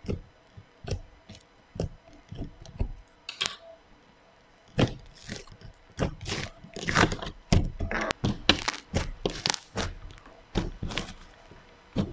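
Thick pink ice-cream-themed slime being pressed and poked by hand, making sharp clicks and pops. They come singly at first, then in a dense run from about five seconds in.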